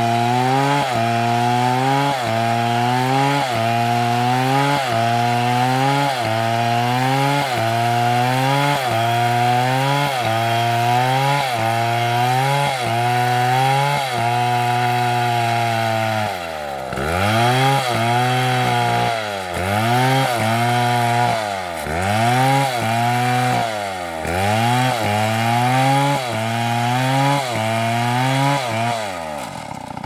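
Stihl MS720 chainsaw ripping lengthwise along a palm log at full throttle, its engine pitch dipping briefly about once a second as the chain bites. From about halfway the engine bogs down deeply under the cut and picks up again every second or so, then falls away near the end.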